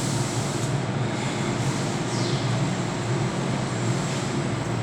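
Steady low background rumble and hiss, with no distinct events.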